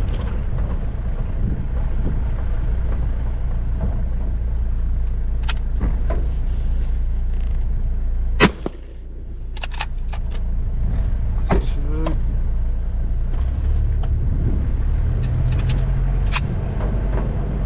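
A 4x4's engine and tyres running steadily over rough dirt, with scattered rattles and knocks. The loudest is one sharp knock about eight seconds in, after which the engine note drops briefly and then picks up again.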